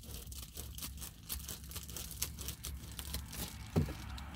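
Reflectix foil-faced bubble insulation crinkling and crackling as it is handled and traced out for the Jeep's back window, with a single soft thump near the end.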